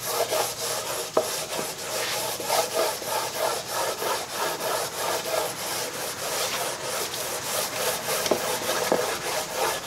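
320-grit sandpaper on a hand sanding block rubbed back and forth over a sealed oak board, in a steady run of short strokes about three a second: light scuff-sanding of the dried first coat of sealer to smooth it before the next coat.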